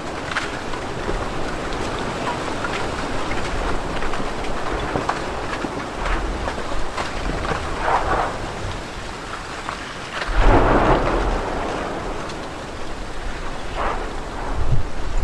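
Mount Etna erupting: a continuous rushing rumble scattered with crackles, with a louder deep rumble that starts suddenly about ten seconds in.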